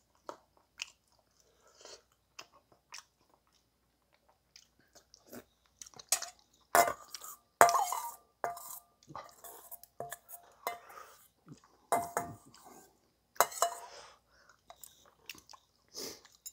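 Metal spoon scraping and clinking against a stainless steel bowl, the strikes leaving the bowl ringing briefly, as the last spoonfuls are scraped out, with chewing in between. The clinks start about six seconds in.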